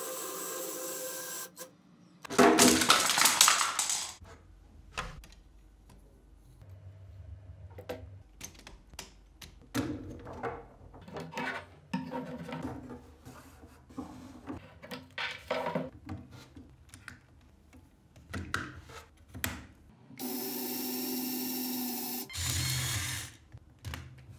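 Lego Technic plastic pieces clicking and rattling as they are handled and snapped together, with many short sharp clicks. A loud burst of noise comes about two seconds in, and a small electric motor runs steadily for about two seconds near the end.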